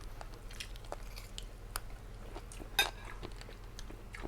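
Chewing and biting food close to the microphone: soft, wet mouth sounds and scattered small crunches and clicks, with one sharper crack about three-quarters of the way through.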